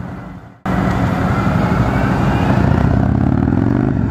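Touring motorcycle engine running steadily under way. It starts abruptly about half a second in and then holds an even level.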